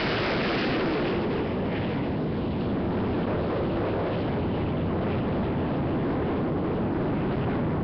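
Boeing 787 Dreamliner's twin turbofan engines at takeoff thrust as the airliner climbs out: a loud, steady, rumbling jet noise. The hiss in it thins slightly about a second in.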